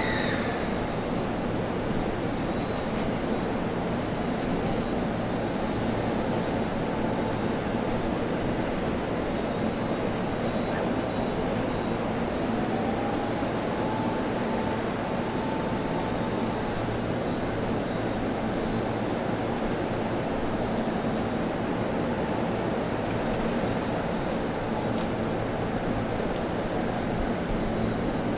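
Electric commuter trains at a station platform: a steady rumble and hum, with a JR 209 series train pulling in on the near track. A whine rises about halfway through and holds for a few seconds.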